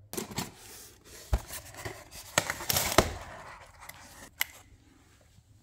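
Packaging being handled during an unboxing: plastic wrapping crinkling and rustling, with several sharp clicks and knocks, loudest about two to three seconds in, and a last click near the end before it goes quiet.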